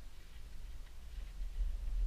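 Low, uneven rumble of wind buffeting the camera's microphone, swelling louder near the end.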